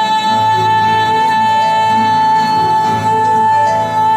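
Female singer holding one long, high, steady note over an instrumental accompaniment whose lower notes move beneath it.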